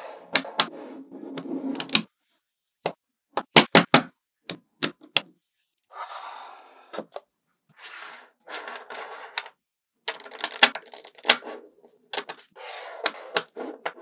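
Small magnetic balls clicking and snapping together as they are handled, in irregular clusters of sharp clicks with short stretches of rattling as strands of balls shift and roll on the table, and brief pauses between.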